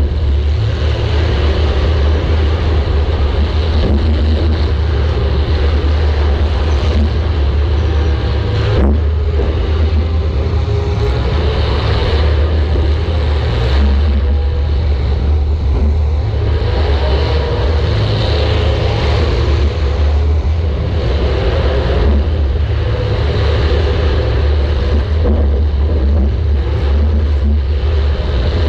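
Compact demolition-derby car's engine running hard, a loud steady rumble heard from a camera mounted on the car, with a sharp knock about nine seconds in.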